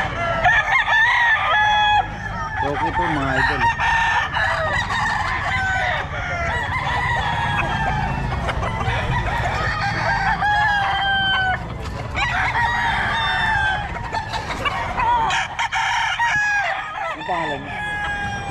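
Many roosters crowing one after another and over each other, call after call overlapping, over a steady low rumble.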